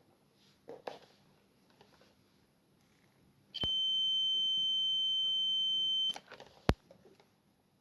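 A steady electronic beep, one high tone held for about two and a half seconds and then cut off, during a test of a Toyota door switch. A single sharp click follows about half a second later.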